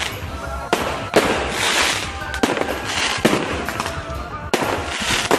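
Fireworks going off: a string of sharp bangs about a second apart, each followed by crackling.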